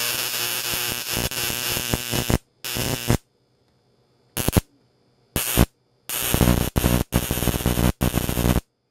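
High-voltage arc from a bug zapper's transformer drawn between a wire lead and a screw terminal, giving a sharp, buzzing, crackling sound. It runs for over two seconds, cuts out, comes back in a few short bursts, then runs again near the end with brief breaks as the arc is struck and pulled.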